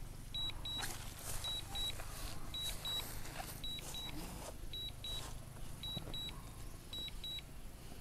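Drone remote controller sounding its warning beeps, pairs of short high-pitched beeps about once a second, while the drone is flying its return-to-home leg.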